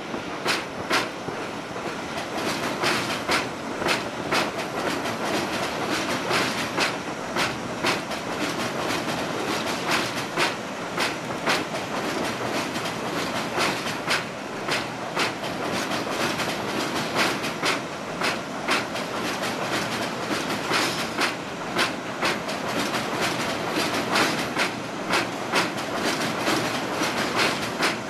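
R62A subway train rolling slowly through yard switches, its steel wheels clacking over rail joints and frogs in an uneven run of sharp clicks, one or two a second.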